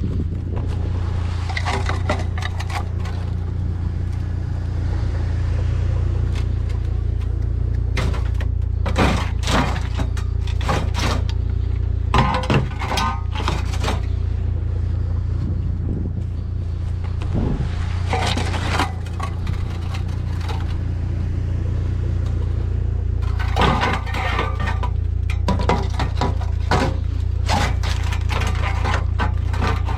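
Scrap metal being handled and loaded: repeated clanks, knocks and scrapes of metal pieces, some ringing, in two busy spells. A steady low engine hum runs underneath.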